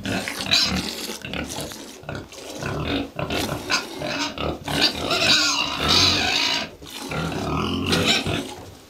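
A cow snuffling and breathing heavily close by, in irregular noisy bursts.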